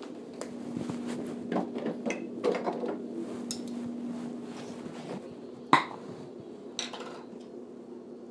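Irregular clicks and light knocks over a steady low hum, with one sharper knock about two-thirds of the way through.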